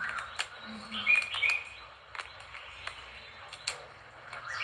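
Small birds chirping in short, high notes, a cluster of them about a second in and more near the end, with scattered sharp clicks in between.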